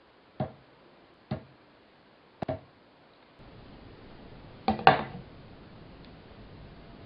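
Fingertip taps and knocks on a tabletop: single taps about a second apart, a quick double tap, then a louder cluster of knocks near the middle. These are the keystrokes an iPhone's accelerometer picks up to tell which key was struck.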